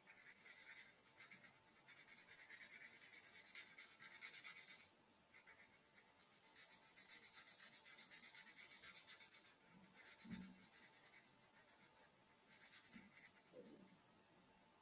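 Faint scratching of a felt-tip marker rubbed back and forth on squared notebook paper as grid cells are coloured in, in three stretches of quick strokes with short pauses between. There is a soft bump about ten seconds in.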